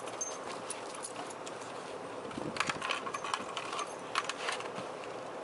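Plastic pet-door flap being pushed by a dog, giving a scatter of sharp clicks and rattles, busiest about halfway through, over a steady background hiss.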